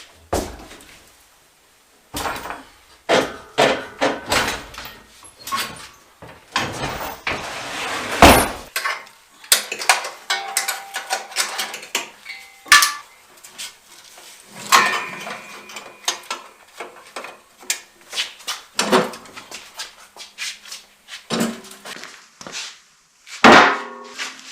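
A string of irregular knocks and clanks, with a stretch of scraping about seven seconds in that ends in the loudest knock.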